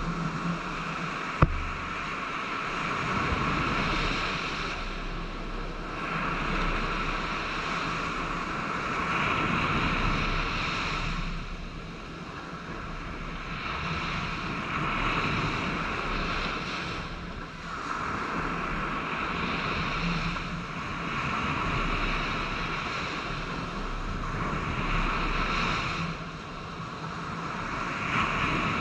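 Sea surf washing on the beach, swelling and fading every four or five seconds, with one sharp tap about a second and a half in.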